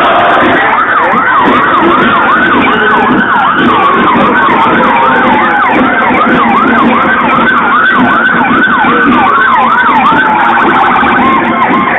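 Electronic emergency-vehicle sirens sounding together: a fast yelp rising and falling about four times a second over a slower wail that climbs and then falls. Near the end the yelp gives way to a steadier pulsing tone.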